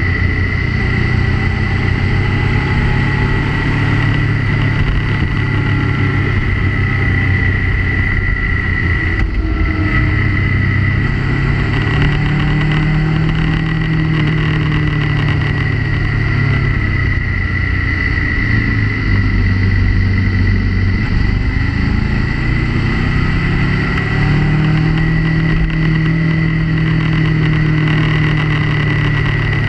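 Motorcycle engine heard on board while riding twisty roads. The engine note rises and falls as the rider accelerates out of bends and backs off, with a brief drop about nine seconds in. A steady high whine runs underneath.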